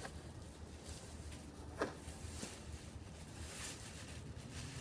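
Clear plastic wrapping crinkling as a padded soft gun case is slid out of its bag, with one sharp click about two seconds in.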